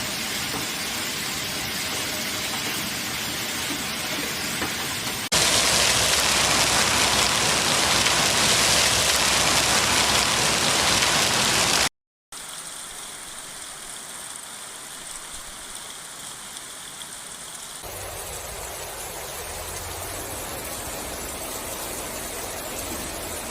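Heavy downpour and rushing storm water: a steady, loud hiss of rain and flowing floodwater in several separate clips. It jumps louder about 5 seconds in, breaks off for a moment about 12 seconds in, and returns quieter.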